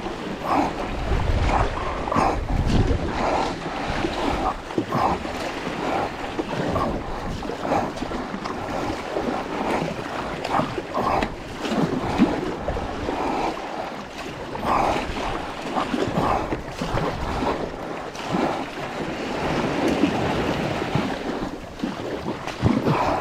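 Choppy sea water rushing and slapping around a paddled sea kayak, with wind buffeting the microphone and a low rumble about one to three seconds in. Heavy, rhythmic breathing sits close on the mouth-mounted camera.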